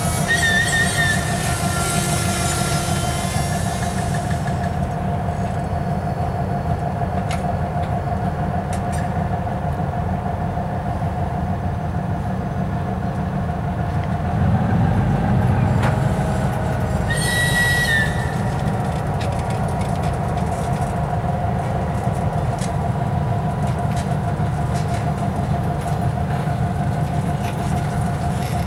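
Loaded flat wagons of a track-repair train rolling slowly past on the rails: a steady rumble with a constant whine. Brief high wheel squeals come about a second in and again about two-thirds of the way through.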